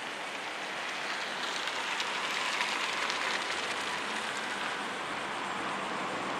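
Steady hiss of road traffic, without any clearly heard siren.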